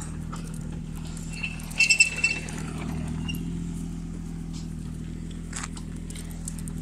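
A steady low hum with a short run of sharp metallic clinks about two seconds in.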